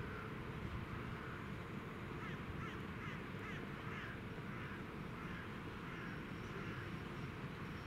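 Crows cawing: several short harsh calls, most in a quick run a few seconds in and a few more later, over a steady low rumble.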